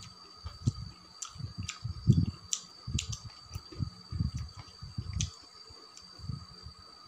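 Close-miked chewing and wet mouth sounds of a person eating a meal of rice, greens and cucumber, in irregular bursts with sharp smacks and clicks. A steady, high-pitched insect chirr runs underneath.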